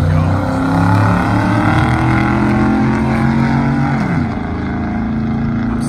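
Two full-size SUVs' engines at full throttle in a drag race launch, climbing in pitch through the gears, then falling away about four seconds in as they lift off down the track.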